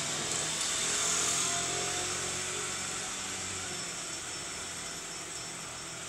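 A small motor running with a steady whirring hiss, a little louder in the first two seconds and easing slowly after.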